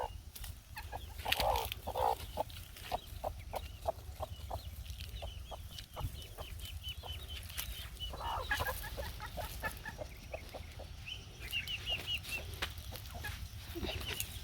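Chickens clucking in repeated short runs of quick calls, over a low steady rumble.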